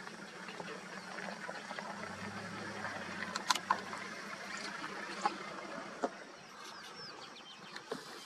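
Open-air bush ambience: a steady hiss with a few scattered sharp clicks or snaps and brief high bird chirps near the end.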